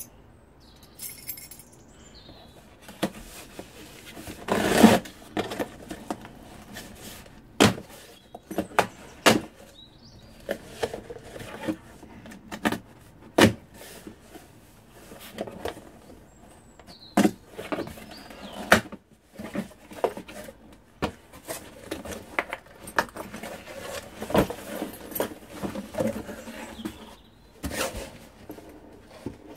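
A trainer box and its packaging being opened and handled, with many scattered sharp clicks and taps and stretches of rustling, and one louder noisy burst about five seconds in.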